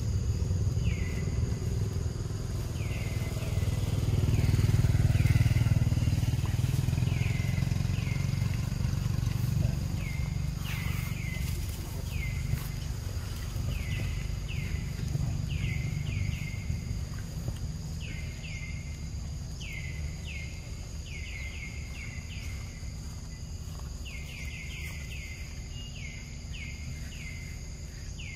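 Outdoor ambience: a low rumble that swells about five seconds in and then slowly fades, under a steady high insect drone and short repeated chirps that come more and more often.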